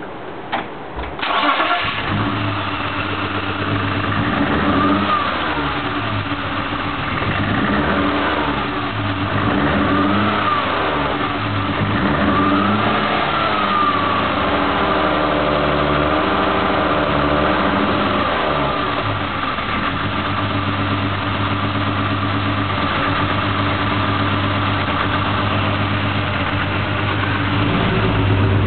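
BMW M3 engine started, catching about a second in, then rising and falling in revs a few times before settling to a steady idle. The engine has a misfire.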